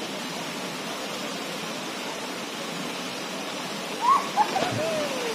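Waterfall rushing steadily. About four seconds in, a person calls out a few times, the voice rising and falling in pitch.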